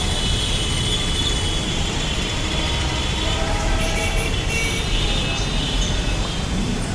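Metro train running: a steady low rumble with a high, steady whine over it.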